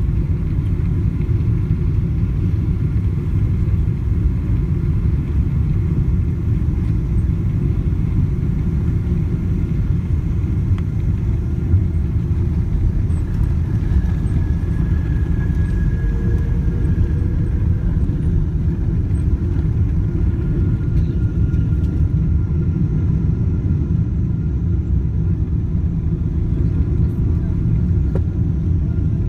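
Steady low rumble of cabin noise inside a Boeing 777-200 airliner, holding at one level throughout.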